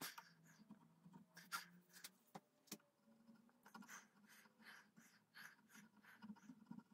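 Small hand file rasping along the edge of a wooden gunstock in faint, short strokes, about two a second, shaping the stock.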